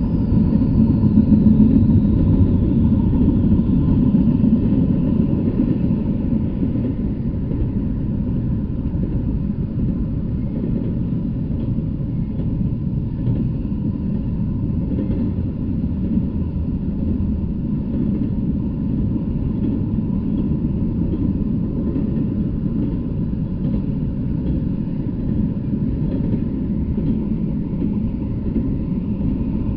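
Double-stack intermodal freight train rolling past, its wheels on the rails giving a steady low rumble.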